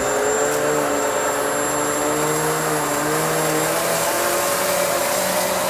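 Hoover Elite Swivel XL Pet upright vacuum running at full speed, its motor whine steady with tones that waver slightly in pitch as it is pushed forwards and back over a rug covered in cat litter.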